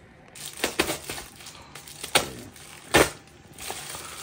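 Small items and their packaging being handled: a few sharp clicks and knocks, the loudest two about two and three seconds in, over light rustling.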